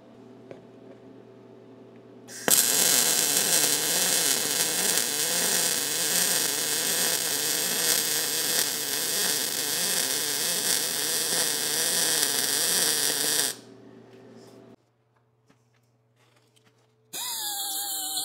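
An electric arc welding on a steel truck frame crackles steadily for about eleven seconds, then stops. Near the end an air die grinder fitted with a small sanding disc starts up with a high, steady whine.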